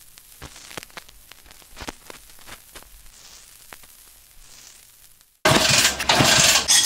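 Faint crackle with scattered sharp clicks and pops, then about five seconds in a sudden, much louder rasping noise cuts in.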